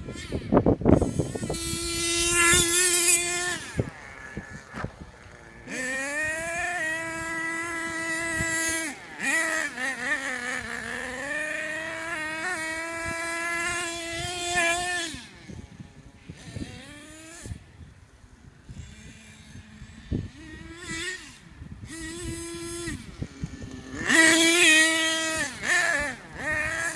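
HPI Savage radio-controlled monster truck driving, its motor revving up and down in repeated bursts with a buzzing note that rises and falls. It runs longest in the middle, gives shorter, weaker blips after that, and revs hard again near the end.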